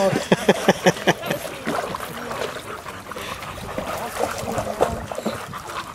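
A dog wading through shallow lake water: a quick run of splashes from its legs in the first second or so, then lighter sloshing and dripping.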